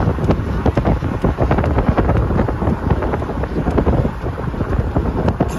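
Moving passenger train: a steady low rumble with rapid, irregular rattling and knocking, and wind buffeting the microphone.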